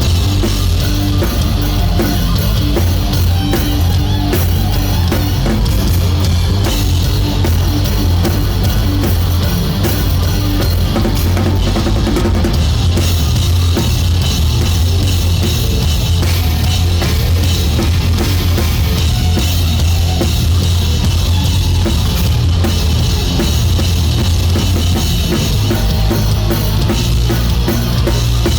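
Rock band playing live at full volume, with the drum kit to the fore: kick drum, snare and a constant wash of cymbals driving a steady beat over electric bass and guitars.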